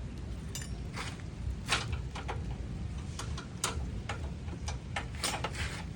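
Hand tools clicking and tapping on metal during work on a car's suspension: a dozen or so sharp, irregular clicks over a steady low rumble.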